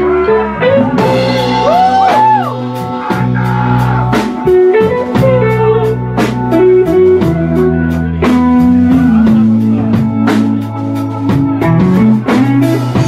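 Live blues band playing a slow song: a sunburst single-cut electric guitar through a small tweed amp plays lead with bent notes over drum kit and keyboard. The band comes in loud right at the start.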